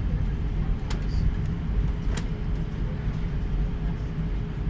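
Steady low rumble of a jet airliner heard inside the passenger cabin as it rolls along the runway just after landing, with a faint steady hum above it. A couple of brief clicks, about one and two seconds in.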